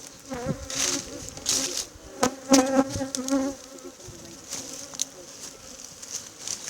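Honeybees buzzing around an opened hive, single bees flying close past and swelling and fading, loudest about two and a half to three and a half seconds in. A couple of sharp clicks come just before the loudest pass.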